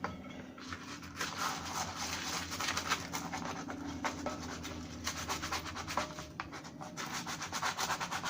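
A kitchen scrubbing tool worked back and forth in quick, repeated strokes against the plastic trapdoor of a vintage Castle Grayskull playset, scrubbing off stubborn sticker residue.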